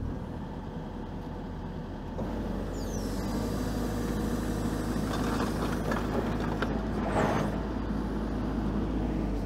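John Deere 135G excavator's diesel engine running, picking up revs about two seconds in, with higher whines and a brief hiss from the hydraulics as the machine is lowered back onto its tracks.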